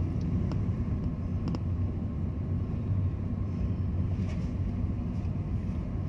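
Steady low rumble of a vehicle driving, engine and tyre noise heard from inside the cabin, with a couple of faint clicks in the first two seconds.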